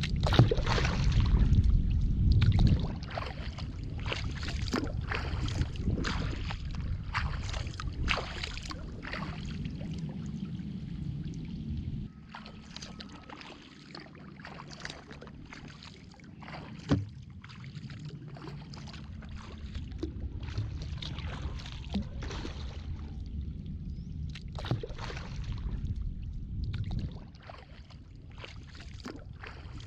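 Kayak paddling: the paddle blades splash in and out of calm water again and again, with water dripping between strokes. A low rumble sits under the first few seconds.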